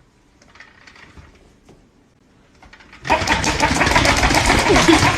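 A loud, fast mechanical rattle, like a small motor running, starting suddenly about three seconds in after a few faint taps.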